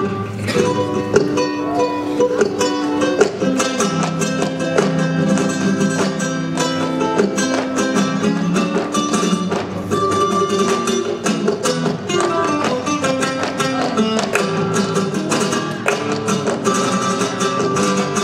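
Live flamenco music on acoustic guitar, with a dense, steady run of sharp percussive strokes over the notes.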